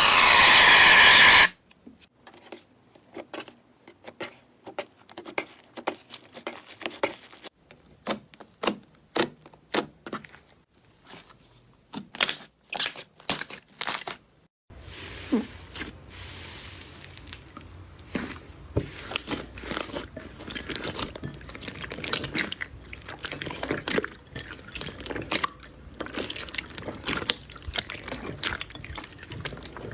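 Slime being squished, poked and pressed by hand: dense, irregular sticky clicks, pops and crackles, in three short clips that change abruptly. It opens with a loud steady hiss lasting about a second and a half.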